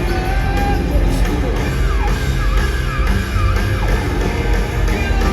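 Live rock band playing loudly in a large hall, with singing and yelling voices over it. A few quick swooping high notes come through in the middle.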